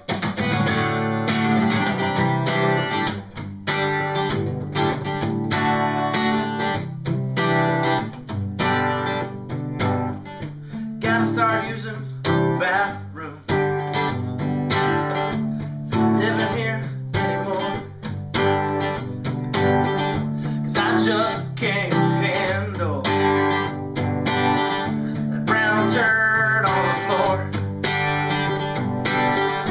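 Acoustic guitar being played, chords and notes ringing in a steady rhythm.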